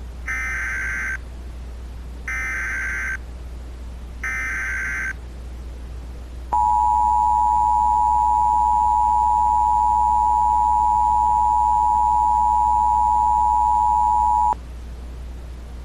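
Emergency Alert System tones: three short bursts of SAME header data about two seconds apart, then the two-tone attention signal, a loud steady dual tone held for about eight seconds that cuts off abruptly, over a steady low hum.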